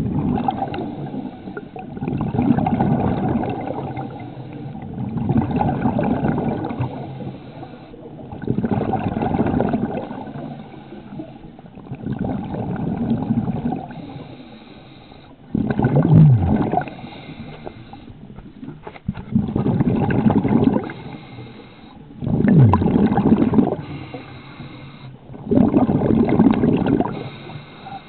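Scuba diver's breathing heard underwater: bursts of exhaled regulator bubbles about every three seconds, each lasting a second or two, some ending in a falling gurgle, with quieter pauses between breaths.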